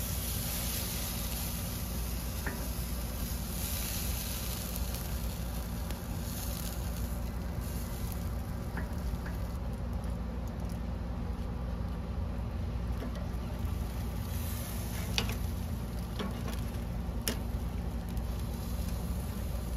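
Food sizzling on the grate of a Kamado Joe ceramic charcoal grill, over a steady low rumble, with a few short sharp ticks in the second half.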